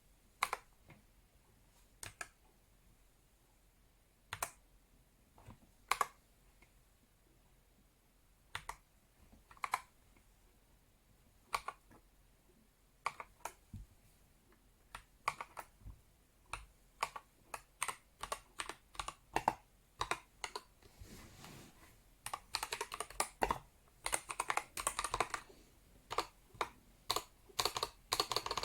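Akko World Tour Tokyo R2 3098 mechanical keyboard being typed on: single keystrokes a second or two apart at first, speeding up into quicker typing past the halfway point, with dense rapid flurries of keystrokes near the end.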